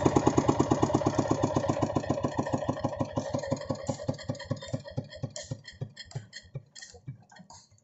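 Single-cylinder diesel engine of a công nông walking tractor running down after shutdown. Its even beats slow from about eight a second to a few a second and fade out near the end.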